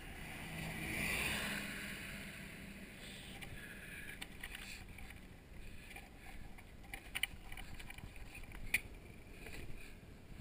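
A city bus passes close by, its engine hum and tyre noise swelling to a peak about a second in and then fading. Longboard wheels roll on over asphalt after that, with a few sharp clacks as the board crosses cracks and joints.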